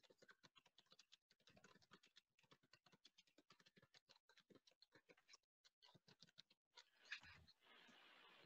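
Faint computer keyboard typing: a quick, uneven run of keystrokes, with a steady hiss coming in near the end.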